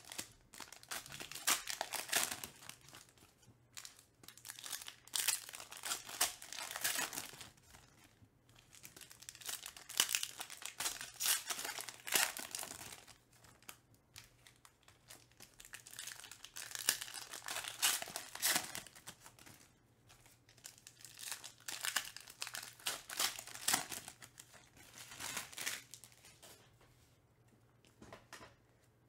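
Foil trading-card pack wrappers being torn open and crinkled by hand, in repeated bursts of a second or two with short pauses between.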